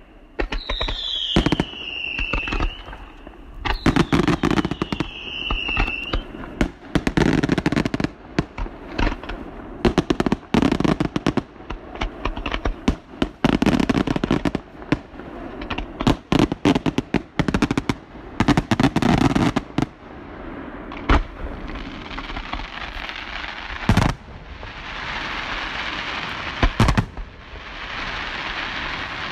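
Aerial fireworks display: two falling whistles in the first few seconds, then rapid volleys of shell bursts and crackling. From about 22 seconds in there is a steady hiss with a few single loud bangs.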